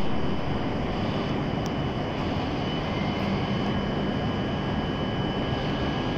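Steady rumbling hiss on a covered Shinkansen platform as a W7 series train approaches from far down the track, with a faint, steady high tone above it.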